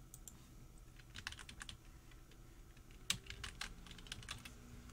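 Typing on a computer keyboard in two short runs of keystrokes, one about a second in and a longer one from about three seconds in that starts with a louder click.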